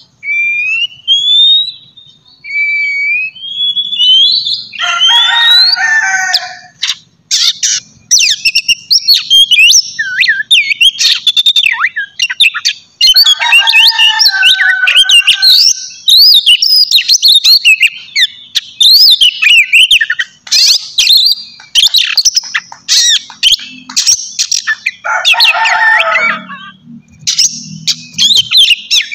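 Oriental magpie-robin (kacer) in full, loud song: clear rising and falling whistles at first, then rapid, varied phrases, broken three times by harsher rasping notes.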